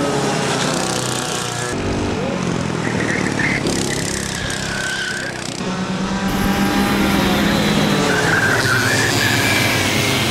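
Racing go-kart engines running at high revs, their pitch rising and falling as the karts brake and accelerate through corners, with tyres squealing a couple of times.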